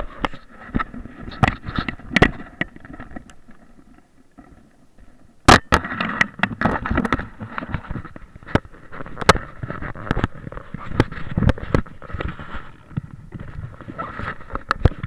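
Skis scraping and carving over packed, groomed snow, heard through a body-worn action camera's microphone with rough wind rush, and many sharp knocks and clicks from the moving mount and gear, the loudest about five and a half seconds in.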